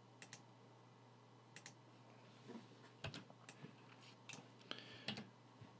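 Faint computer mouse clicks and keyboard key presses, a handful of short irregular clicks spread through a near-silent stretch.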